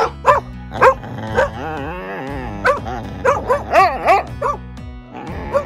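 Dog yipping and whining in short, high, rising-and-falling cries, with a longer wavering whine about two seconds in and a quicker run of yips after it, over background music.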